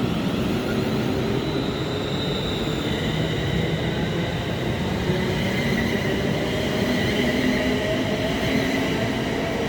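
Electric passenger train pulling out of the station: a low rumble of the train with a steady electric whine from its traction equipment, higher whine tones joining about two to three seconds in.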